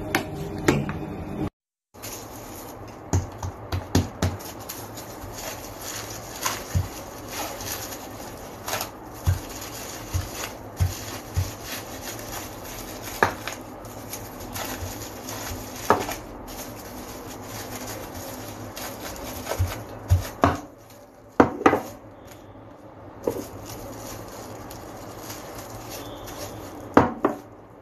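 A spoon scraping and tapping in a bowl of mashed potato. After a brief silent cut, scattered knocks, taps and rubbing as dough is pressed and rolled flat on a plastic-wrapped kitchen counter.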